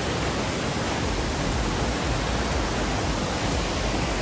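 A steady rushing noise with no distinct events, joined by a deeper rumble about a second in.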